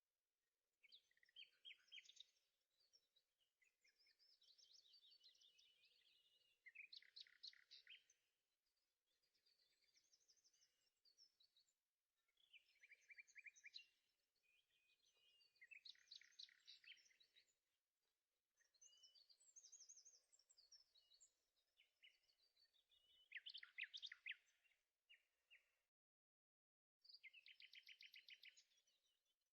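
Faint birdsong: a songbird singing short chirped and trilled phrases, one every two to three seconds.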